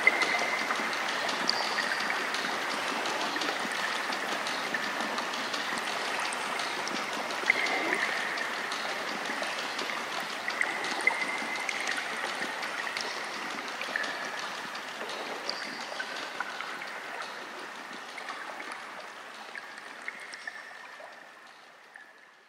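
A stream running, a steady rushing and gurgling of water with small brief plinks, fading out over the last few seconds.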